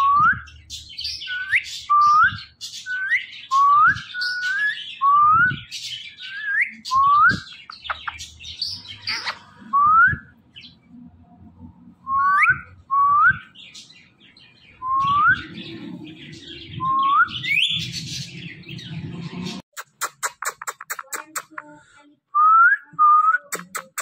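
Indian ringneck (rose-ringed) parakeet giving a long series of short, rising, whistled chirps, roughly one a second, with a few brief pauses. Near the end the chirps give way to a fast, even clicking.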